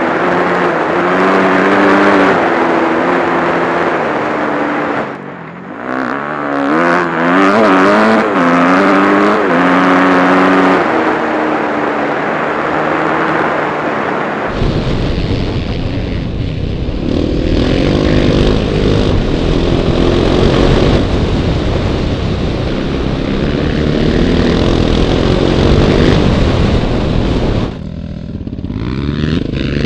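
Yamaha YZ250F dirt bike's four-stroke single-cylinder engine revving and easing off on a trail ride, the pitch climbing and falling with the throttle, with a brief drop off the throttle about five seconds in. From about halfway a heavy wind rumble on the microphone lies under the engine.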